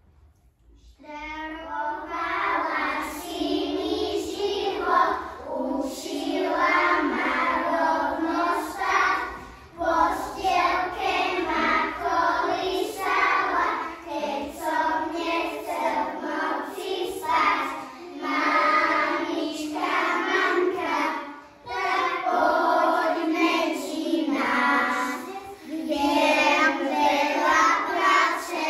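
A group of kindergarten children singing a song together in unison, starting about a second in.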